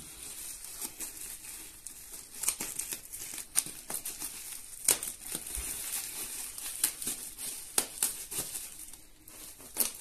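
Plastic bubble wrap crinkling and rustling as it is handled and cut open with scissors, with irregular sharp crackles and snips.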